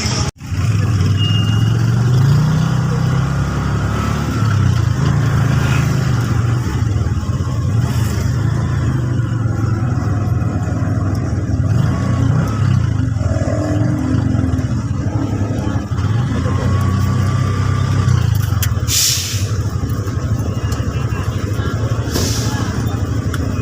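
A motor vehicle's engine and road noise, a steady low rumble, with two brief hisses in the last few seconds.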